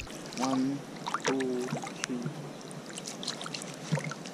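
River water lapping and splashing against a camera held at the surface, with many small irregular ticks and sloshes. A few short pitched sounds come in the first two seconds.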